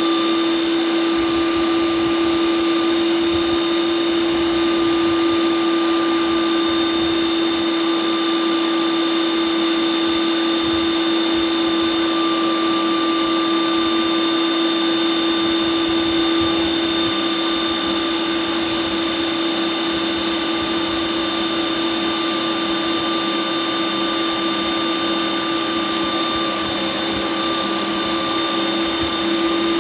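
Ninja Creami ice cream maker running its Sorbet program, the motor spinning the blade down through a frozen pint of soft-drink sorbet with a loud, steady hum.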